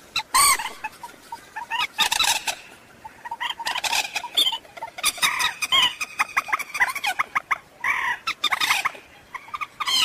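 Common moorhen calling: a series of short, harsh, clucking calls that crowd into a rapid chatter in the middle, as played to lure the birds in for trapping.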